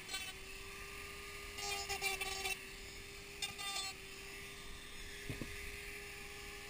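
Handheld rotary tool running with a steady high whine while sanding the inside of a plastic Iron Man helmet shell. The bit bites into the material briefly twice, about two and three and a half seconds in, adding a harsher, higher grinding. A short knock comes near the end.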